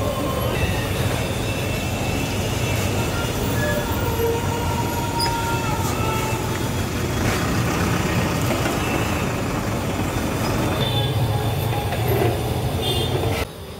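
Steady roadside traffic noise: a constant low rumble with faint thin higher tones from passing vehicles, dropping off abruptly near the end.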